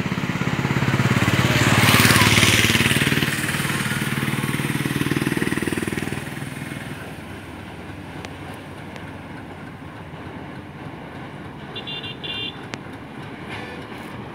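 A motor vehicle passing close by: it swells to a peak about two seconds in and fades out over the next few seconds. A quieter steady background follows, with a brief high beeping about twelve seconds in.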